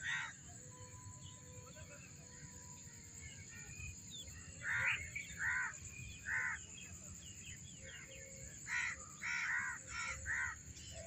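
Crows cawing in short harsh calls: one at the start, three spaced about five to six and a half seconds in, then a quick run of five near the end.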